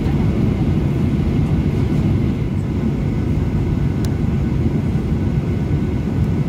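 Cabin noise of a Boeing 737 taxiing, heard from a window seat over the wing: a steady low rumble of its CFM56 engines at taxi idle, with a faint high whine.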